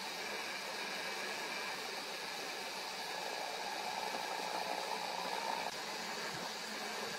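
Steady outdoor background hiss. A faint hum joins it about halfway through and cuts off suddenly shortly before the end.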